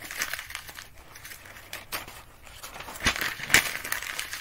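Sheets of paper being crumpled into balls by hand, in a few uneven spells of rustling, the loudest about three and a half seconds in.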